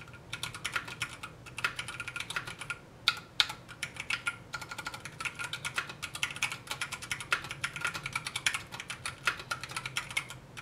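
Typing on a Duck Octagon mechanical keyboard with 67g Zealio tactile switches and original Cherry POM keycaps: a fast, dense run of keystrokes with a few brief pauses. Two strokes about three seconds in are louder than the rest.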